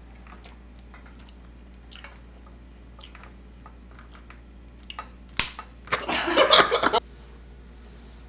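Faint scattered clicks, then a single sharp knock about five and a half seconds in, followed by about a second of loud, noisy fluttering sound.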